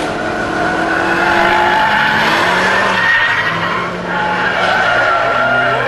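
Two track-day cars, a red Mazda RX-8 with its two-rotor rotary engine among them, running hard through a bend, with the engine notes changing pitch and the tyres squealing.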